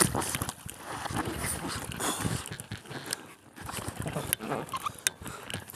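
Water splashing irregularly as a swimmer kicks and paddles on a foam float, with his hard breathing close to the microphone.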